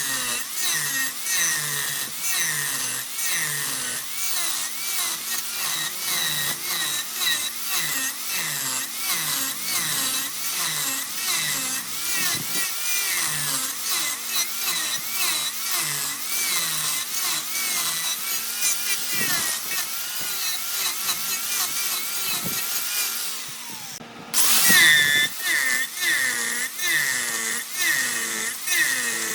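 Wood lathe running with a turning tool cutting the spinning wood: a rhythmic scraping and whirring that repeats about twice a second. It fades and stops for a moment near the end, then comes back louder.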